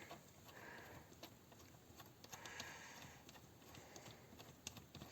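Faint, scattered small metallic clicks and taps as steel bolts are threaded by hand into the housing of a Lada Niva transfer-case centre differential.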